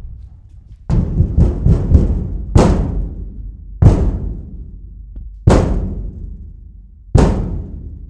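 Thin sheet metal being banged: a quick run of four bangs about a second in, then single bangs about every one and a half seconds. Each bang dies away in a deep rumble.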